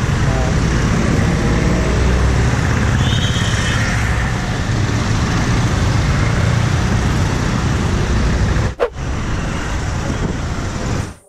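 A motorcycle riding in city traffic: the engine and a steady rumble of wind on the microphone. There is a short high-pitched tone about three seconds in, and a brief dropout about nine seconds in.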